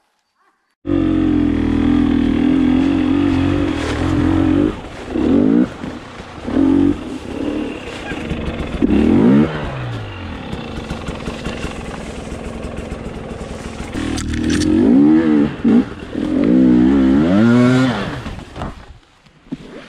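KTM enduro dirt bike engine under load on a steep slope, revved up and down in repeated bursts and falling back to low revs between them. It comes in suddenly about a second in and drops away shortly before the end.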